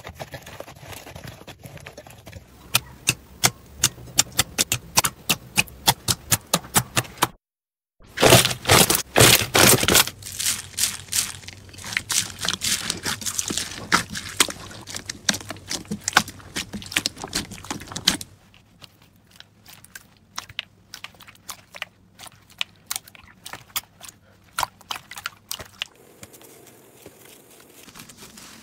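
Slime being squeezed and kneaded by hand: rapid crackling pops and squelches as trapped air bursts. Part of it is foam-bead slime. The sound drops out briefly about seven seconds in and comes back louder and denser, then turns quieter and sparser about eighteen seconds in.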